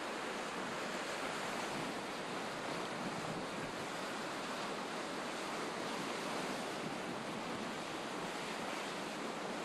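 Steady rushing noise of wind and sea, even throughout, with no distinct splashes or knocks.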